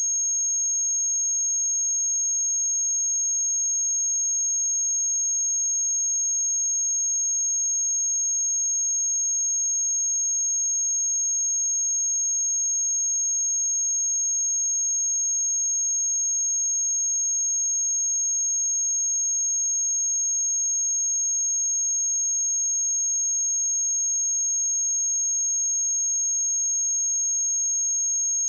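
A pure 6512 Hz sine-wave test tone: one steady, high-pitched whistle held unchanged at a constant level.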